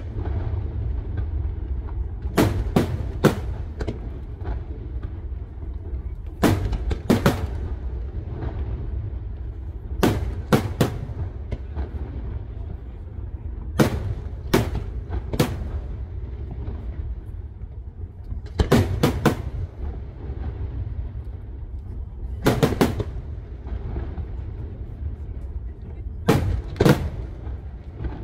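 Aerial firework shells from a Parente Fireworks display bursting in quick clusters of two or three sharp bangs, a cluster about every four seconds, over a steady low rumble.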